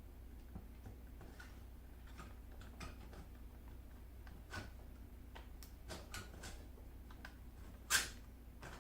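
Scattered light clicks and taps of hardware being handled, with one sharp knock about eight seconds in, over a steady low hum.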